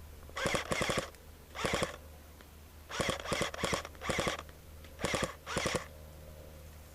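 Airsoft gun firing full-auto in about seven short bursts of rapid clicks, spread over some five seconds.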